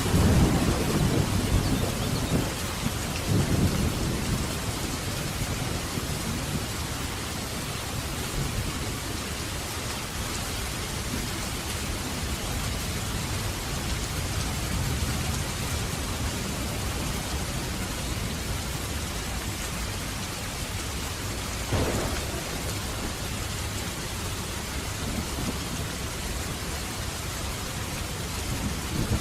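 Steady heavy rain falling, with a loud low thunder rumble at the start that rolls on for about four seconds, and a short sharp crack of thunder near the end.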